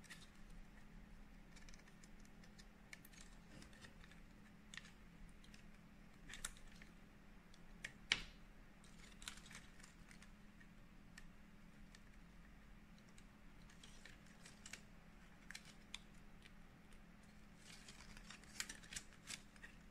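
Faint handling of flat ribbon cables: scattered soft clicks and crinkles as the plastic cables are bent and pressed into circuit-board connectors, the sharpest about eight seconds in and a quick run near the end, over a low steady hum.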